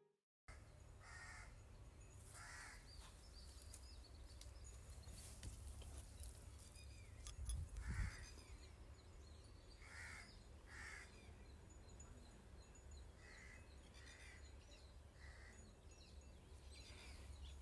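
Faint outdoor ambience: a crow cawing now and then, short single calls spread through, over a steady low rumble, with a soft low bump about midway.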